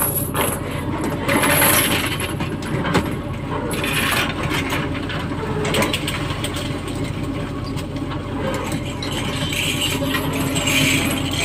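A fishing boat's engine and deck machinery running with a steady low drone, with scattered metallic clinks and knocks.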